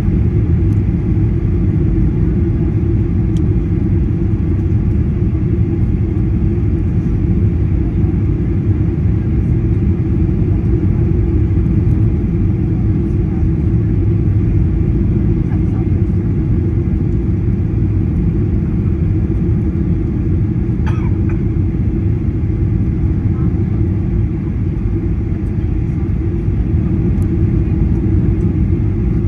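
Steady low roar of a Boeing 737-800's CFM56 engines and rushing airflow, heard inside the cabin as the jet descends on approach with its flaps extended.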